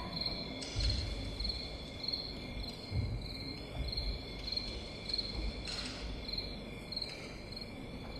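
A faint, regular high-pitched chirp repeating about twice a second, with a few dull low thumps about a second and three seconds in.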